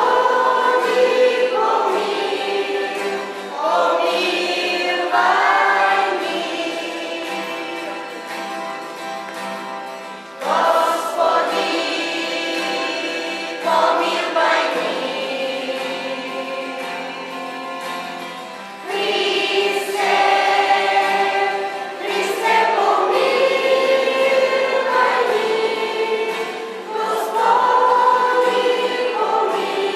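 A choir of children and teenage girls singing a hymn in long, held phrases with short breaks between them.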